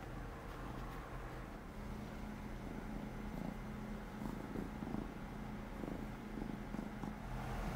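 Domestic cat purring close by, a soft, steady purr that swells in the middle.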